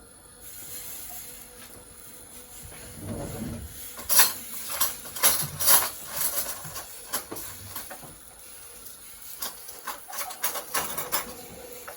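Pancake batter sizzling in a hot frying pan with a steady hiss, and scattered sharp clicks and taps from utensils against the pan, loudest about four to six seconds in and coming more thickly near the end.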